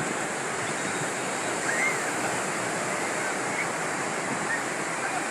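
Sea waves and surf washing steadily onto the shore, a continuous even rush.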